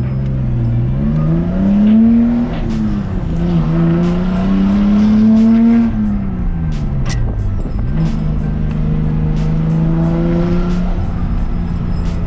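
The RB25DET turbocharged straight-six of an R32 Nissan Skyline, heard from inside the cabin as the car accelerates. The revs climb for about two seconds, dip at a gear change, and climb again. Around six seconds in they fall away, and from about eight seconds in the engine holds a steady cruise.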